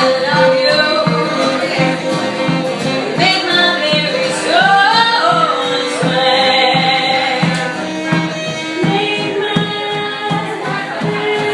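Live performance of a song: women's voices singing held, gliding notes over an instrumental accompaniment with a steady beat.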